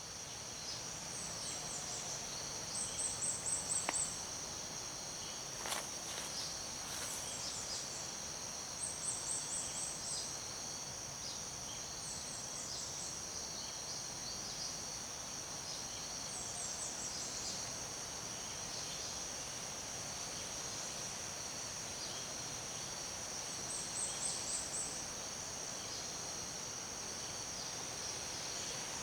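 Tropical rainforest ambience: a steady, high-pitched insect drone, with short rapid chirping calls recurring every few seconds. There are a couple of faint clicks about four and six seconds in.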